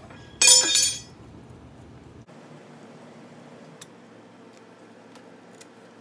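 A sharp metallic clink, about half a second in, with a brief ring: a steel tool striking the sheet-steel monitor mounting bracket. A few faint clicks follow.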